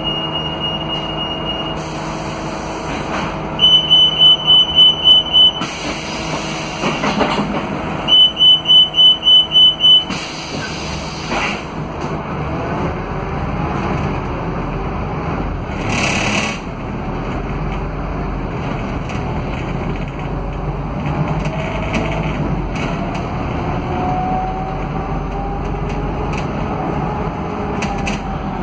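Inside a Scania K320UA articulated bus: a high warning beep, then runs of quick pulsed beeps alternating with loud pneumatic hisses as the doors work, and a short air hiss a little after halfway. After that the five-cylinder Scania DC09 diesel pulls under load, and in the last third a gear whine rises as the bus speeds up, the sound the uploader puts down to the engine and the hub-reduction rear axle.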